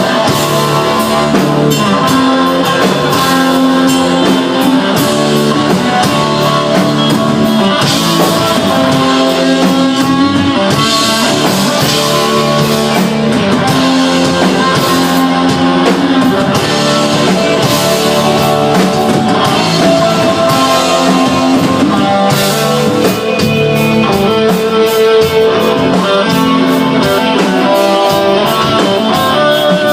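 Live instrumental desert rock band playing loudly: electric guitar with bass and a drum kit, the guitar notes held and ringing over the steady beat.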